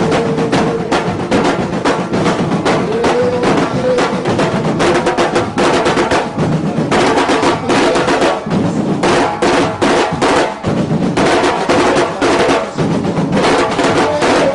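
Afro-Brazilian batuque drumming by a percussion group: many drums played together in a dense, continuous rhythm.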